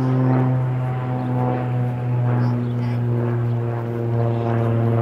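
A steady, low engine drone holding an even pitch.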